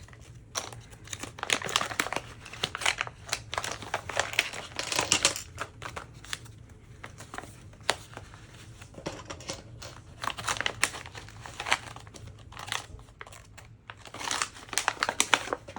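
Packaging crinkling and rustling by hand in irregular bursts, with sharp little clicks and taps, as the small tools of a diamond-painting toolkit are unpacked.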